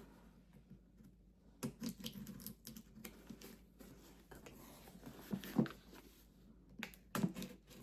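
A cardboard package being handled and opened by hand: scattered taps, scrapes and rustles in short clusters, the loudest a couple of sharp knocks around the middle.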